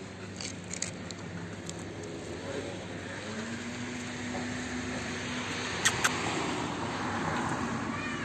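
A vehicle passing in the background: a low steady hum, then a swell of noise that builds through the second half. There are a few faint small clicks, and two sharp clicks about six seconds in.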